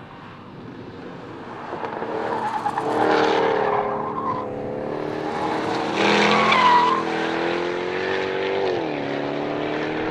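Audi TT RS's turbocharged five-cylinder engine running hard, growing louder over the first few seconds. Brief tire squeals come about four and six and a half seconds in. Its pitch dips about nine seconds in, then climbs slowly again.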